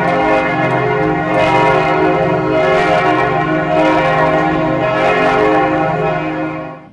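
Church bells ringing in a full peal of many overlapping tones, with a fresh strike roughly every second; the ringing cuts off abruptly near the end.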